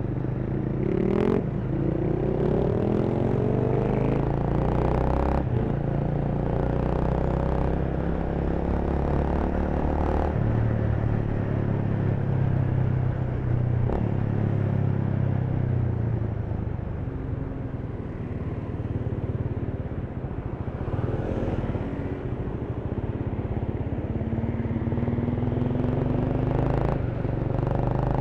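Honda Rebel 300 motorcycle's single-cylinder engine running under way in city traffic, its pitch rising several times as it accelerates through the gears in the first few seconds, with a few short sharp clicks along the way.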